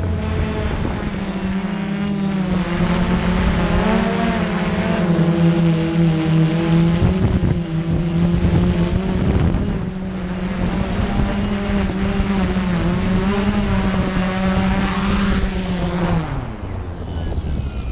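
Drone's electric motors and propellers humming steadily in flight, the pitch wavering slightly as the throttle changes. About sixteen seconds in the hum drops in pitch and fades as the drone sets down and the motors slow.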